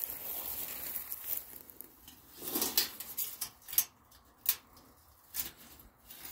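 Footsteps and rustling in dry grass and pine-needle litter, with a few sharp crackles as a sheet of corrugated metal roofing is lifted off the ground near the end.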